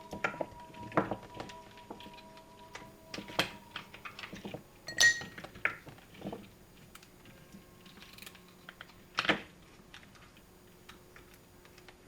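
Scattered light clicks and clinks of small hard objects being handled, with louder knocks about five and nine seconds in.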